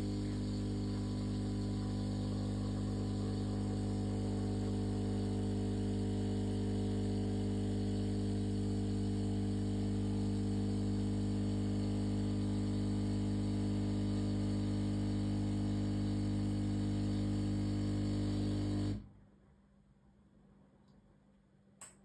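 De'Longhi Magnifica Start ECAM 220.22.GB coffee machine's vibratory pump humming steadily as it brews coffee through the spouts. It cuts off abruptly about 19 seconds in when the brew ends, and a faint click follows near the end.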